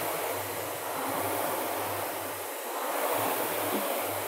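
Two Concept2 rowing machines' air-resistance flywheel fans whooshing as they are rowed hard. The rush swells with each drive stroke, about every two seconds.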